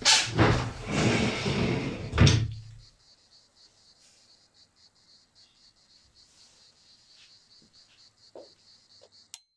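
A door being pulled shut, closing with a bang about two seconds in, then a faint steady high-pitched hiss.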